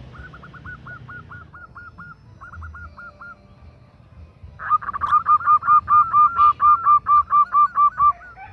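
Female zebra dove (perkutut) calling. A faint run of short, quick notes comes first, then from about halfway a loud, rapid series of about fifteen short cooing notes at roughly four a second, lasting about three and a half seconds.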